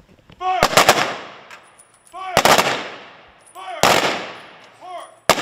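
Three-volley rifle salute by an honor guard: three volleys of rifle fire about a second and a half apart, each cracking and echoing. The first volley is ragged, with the shots not quite together. A short shouted command comes before each volley, and a single sharp crack follows near the end.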